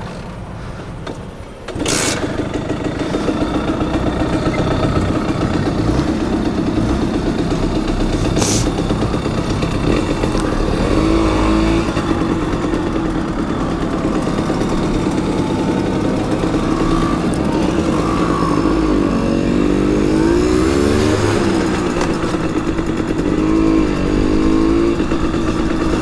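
Simson moped's single-cylinder two-stroke engine under way, coming in suddenly and loudly about two seconds in, then running steadily with its pitch rising and falling a few times as it is revved through the gears.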